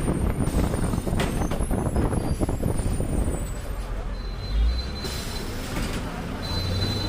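A city bus running in road traffic: a heavy engine rumble with road noise, rougher in the first half with a brief sharp hiss about a second in, then easing, with a thin high steady tone coming and going later on.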